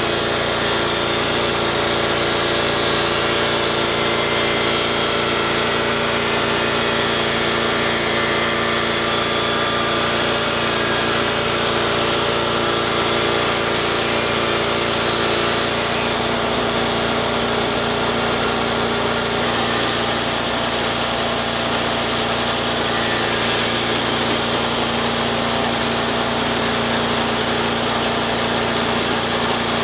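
Portable bandsaw mill running steadily as its blade cuts through a mesquite log, the engine holding an even, unchanging pitch.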